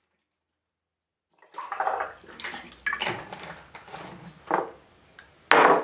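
Juice poured from a large plastic jug into a glass of ice, splashing and gurgling, starting about a second and a half in. A few sharp knocks follow near the end.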